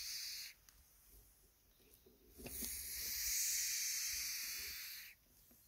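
Grass snake hissing: one hiss ends about half a second in, and a longer hiss of about two and a half seconds follows from just before the middle. The hissing is a defensive warning at being approached.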